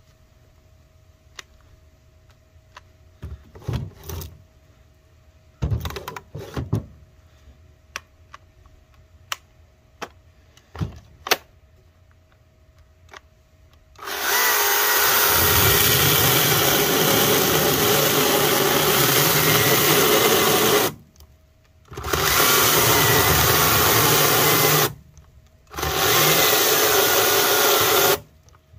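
Greenworks GS110 battery top-handle chainsaw cutting firewood in three loud, steady bursts, the first about seven seconds long, with short stops between. Before that, about fourteen seconds of scattered knocks and clicks.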